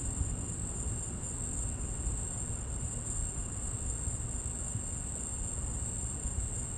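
Night insect chorus, crickets or katydids, holding one steady high-pitched trill over a continuous low rumble.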